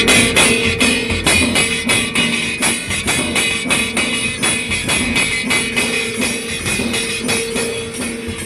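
Dhol drums playing a fast, even beat of about four strokes a second, with bright jingling over the drumming and a steady held note beneath.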